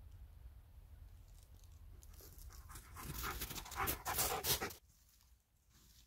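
A dog panting rapidly, building up about two seconds in and stopping abruptly near the end.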